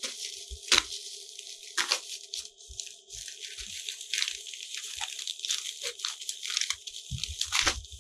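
Plastic packaging crinkling and rustling as a newly delivered part is unwrapped by hand, with a few sharper crackles and some low handling knocks near the end.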